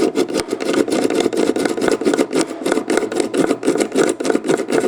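Spring-loaded Yankee Handyman push drill boring a screw hole into a wooden clock case as it is pumped up and down, making a rapid, rough rasping chatter.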